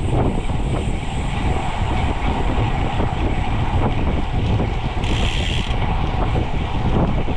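Steady wind rumble on the microphone and road noise from riding in a bicycle group ride, with a brief hiss about five seconds in.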